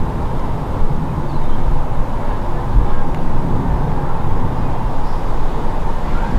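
Distant low rumble of an Airbus Beluga XL's twin Rolls-Royce Trent 700 turbofans passing overhead at cruising altitude, steady but wavering in strength.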